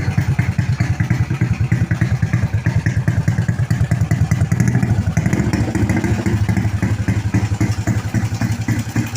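Modified Honda Wave 100 motorcycle engine fitted with big 24/28 valves, running steadily at idle with a fast, even exhaust pulse. It runs a little fuller from about halfway through.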